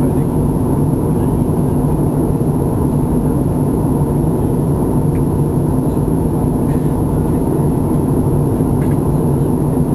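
Steady cabin noise inside an Airbus A320 airliner in flight: the engines and the airflow over the fuselage make an even, deep rumble.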